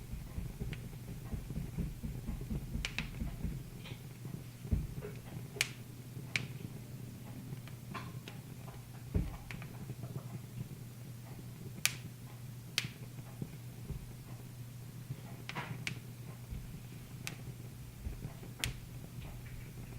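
Wood fire in a fireplace crackling: irregular sharp pops, a dozen or so spread unevenly, over a low steady hum.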